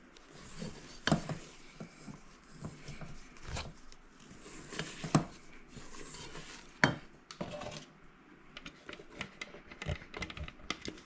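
Kitchen utensil clinking and scraping against a mixing bowl as chocolate macaron batter is mixed, in irregular knocks and scrapes.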